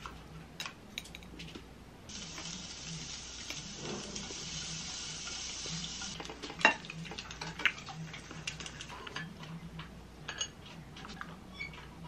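Wooden spoon clicking and scraping against a ceramic plate a few times while eating, with a soft steady hiss for about four seconds, starting two seconds in.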